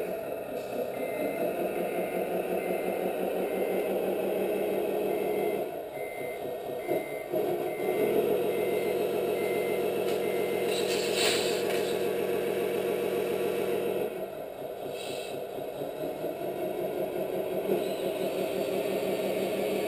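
Simulated diesel truck engine from an RC Scania tipper's onboard sound unit, idling with a reversing beeper sounding about twice a second for the first nine seconds or so. The engine note rises between about eight and fourteen seconds in as the tipper body lifts, with a short hiss about eleven seconds in, then it drops back to idle.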